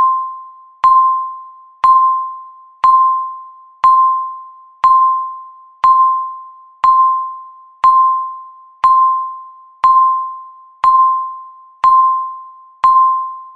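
Countdown timer beeping once a second: a single mid-pitched electronic tone, each beep starting sharply and fading away just before the next, about fourteen in all.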